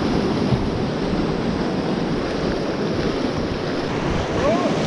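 Rushing white water of a river rapid, with wind buffeting the microphone. There is a brief call from a voice near the end.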